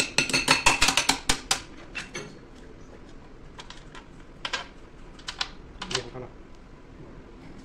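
A quick run of about a dozen sharp clicks and taps, then a few single ones spread out, from hand tools working on the steel rim of a transformer tank.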